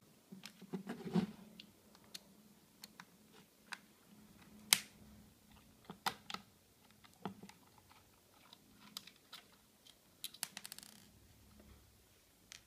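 Hands and a small screwdriver working on the plastic case of an Elsys Satmax HD satellite receiver: scattered light clicks and knocks, the sharpest about five seconds in, and a quick run of ticks near the end, over a faint steady hum.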